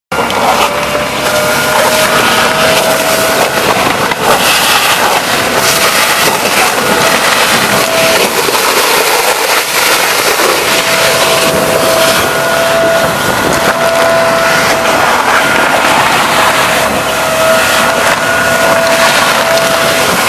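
Vacuum cleaner running steadily with a high motor whine that drops in and out, with scattered clicks as it sucks up small stones from paving.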